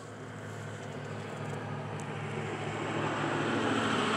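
A motor vehicle approaching, its engine and road noise growing steadily louder.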